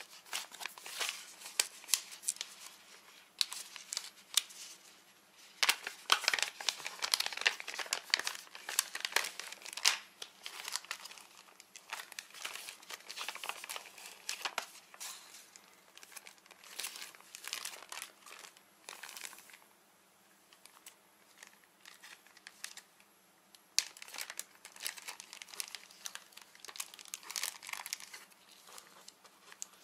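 Plastic packaging crinkling and rustling in irregular bursts as hands unwrap a packet of clear goggle tear-off lenses, with a quieter pause about two-thirds of the way through.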